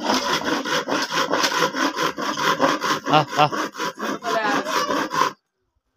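Hand saw cutting wood in rapid rasping strokes, which stop suddenly about five seconds in.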